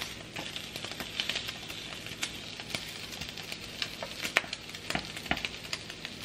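Turkey bacon frying on a nonstick griddle pan: steady sizzling with scattered crackles, and a few sharper clicks near the end.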